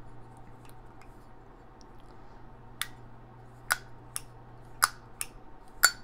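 Zippo lighter with a butane insert being handled: about seven sharp metallic clicks, irregularly spaced, starting about three seconds in.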